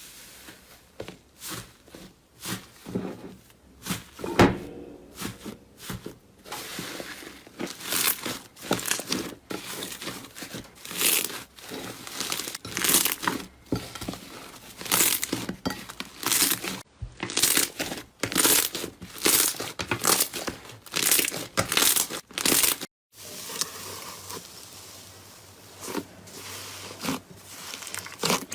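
Slime being handled, pressed and pulled, giving a run of irregular crackling, crinkling pops about once or twice a second.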